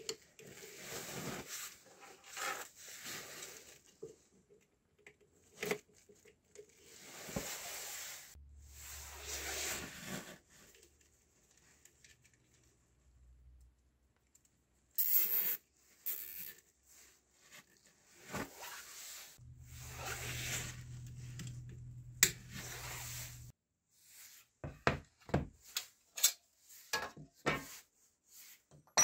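Rustling and small clicks of hands handling and twisting speaker wires at a woofer's terminals and crossover board, in irregular bursts. A brief low hum sounds in the middle, and several sharp knocks come near the end.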